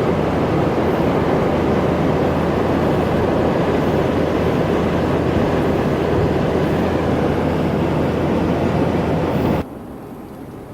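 Steady road and engine noise inside the cab of a moving Dodge Ram 3500 pickup truck, with a low hum under the rushing noise. The noise drops abruptly to a much quieter level near the end.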